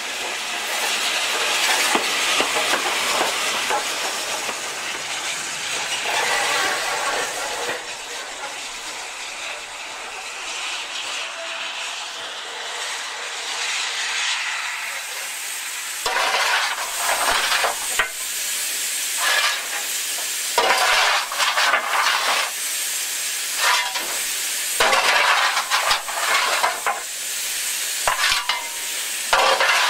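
Steam locomotive, the GWR King class 4-6-0 No. 6023, running with a steady hiss of steam. From about halfway through, a run of short irregular bursts and scrapes follows, ending with the fireman shovelling coal into the firebox on the footplate.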